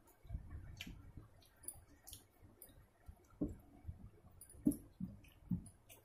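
Fingers mixing rice on a stainless steel plate while eating by hand, with scattered small clicks and a few soft taps against the plate.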